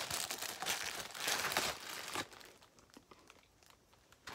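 Plastic packaging crinkling as a boxed squishy toy is handled and turned in the hands, stopping about two seconds in.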